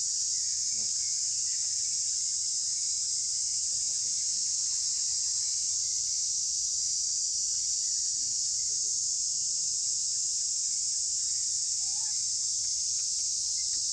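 Steady, high-pitched drone of a forest insect chorus, unbroken and unchanging.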